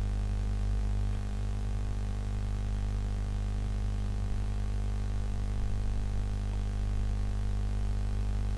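Steady low electrical hum made of several even, unchanging tones, with no other sound standing out.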